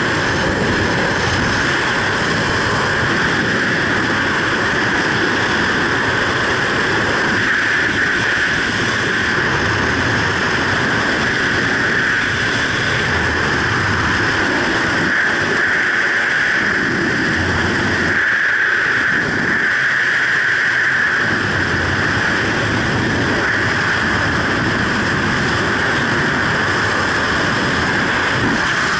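Freefall wind rushing over a helmet-mounted camera's microphone: loud and steady, without a break.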